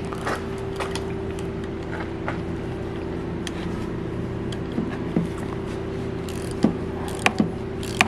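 Scattered metallic clicks and clanks of hand tools working on a car's underside, more frequent near the end, over a steady mechanical hum.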